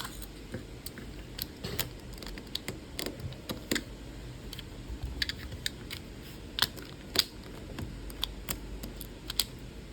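Irregular light clicks and taps of small plastic parts being handled and fitted together while a toy pistol is reassembled, about a dozen scattered across several seconds.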